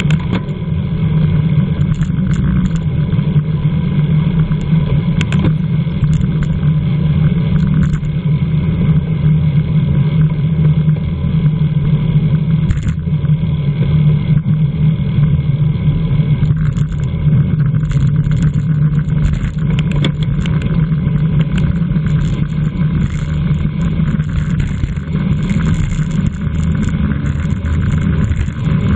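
Steady rumbling wind and road noise from a road bicycle rolling at race speed.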